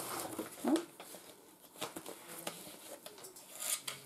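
Paper and cardboard rustling and crinkling as a small paper packet is handled and opened beside a cardboard box, with scattered light taps and a brief louder scuff just under a second in.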